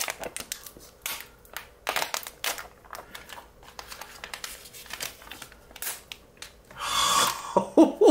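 Protective plastic film being peeled off a Samsung Galaxy Z Fold 3 and handled: repeated crinkling and crackling, with a longer, louder peel about seven seconds in.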